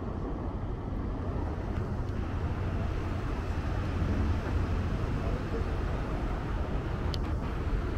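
Steady low rumble of a sightseeing boat under way, with a brief high squeak about seven seconds in.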